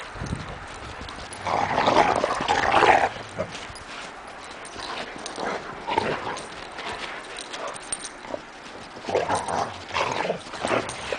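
Dogs vocalizing during rough play, in irregular bursts, loudest about two to three seconds in and again near the end.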